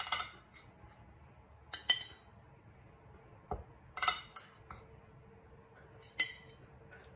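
Metal cake server clinking against ceramic dishes as slices of cake are lifted from a serving platter onto a plate. There are several sharp clinks spaced a second or two apart, with a dull thud about halfway through.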